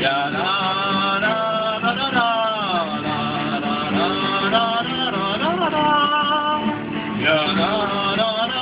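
Band music with guitar, carried by a lead melody line that slides up and down in pitch.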